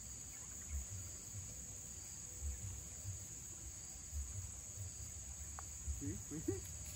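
Steady high-pitched drone of insects in the surrounding vegetation, with soft low thuds now and then.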